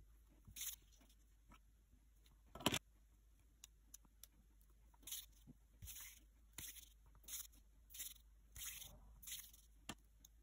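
Hands rolling soft clay between the palms: a series of about seven short, faint swishing rubs, each about 0.7 s after the last, in the second half. A single sharp knock comes about two and a half seconds in, the loudest sound.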